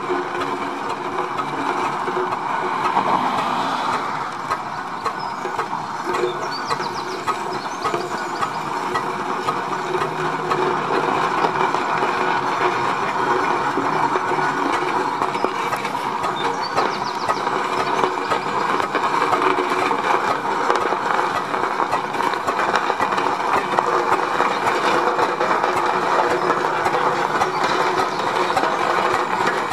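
Steam roller running and moving slowly forward over gravel, giving a steady, dense mechanical clatter.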